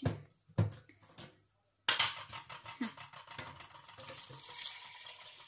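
A couple of knocks as the lid of a plastic water jug is opened. Then, about two seconds in, water pours steadily from the jug into a stainless steel pot of dried apricots.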